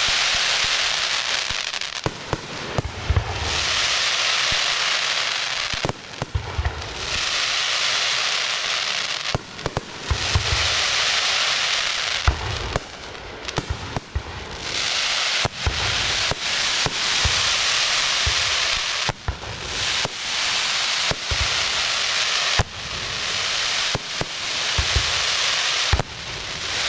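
Aerial firework shells bursting in quick succession: sharp bangs and deep thumps every few seconds, with stretches of dense hiss lasting a second or two as the stars burn out and fall.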